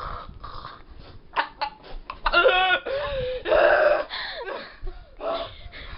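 Girls laughing hard without words: a high wavering squeal of laughter a couple of seconds in, then a loud breathy burst, with wheezes and gasps between.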